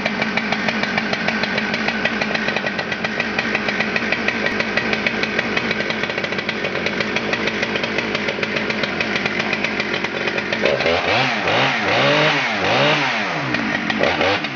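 Husqvarna 394 XP 94 cc two-stroke chainsaw idling steadily, then revved up and back down several times in quick succession about ten seconds in, before settling back to idle.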